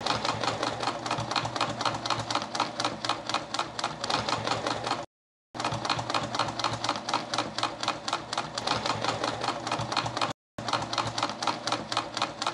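Sewing machine stitching at speed, a fast even clatter, in three runs broken twice by sudden cuts to silence.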